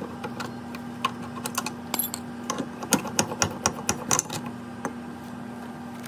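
Irregular light metallic clicks and clinks as the metal retaining straps on a refrigerator compressor's mounting feet are straightened and twisted off, thinning out near the end. A steady electrical hum runs underneath.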